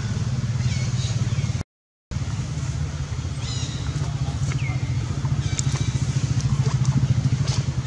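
An engine idling with a steady low throb. A few short, high-pitched falling chirps sound over it. The sound cuts out completely for about half a second, about a second and a half in.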